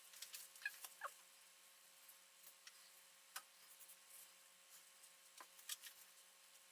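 Faint, sparse clicks and soft taps with a couple of short squeaks about a second in: soft candy being pressed into a plastic candy mold by gloved hands.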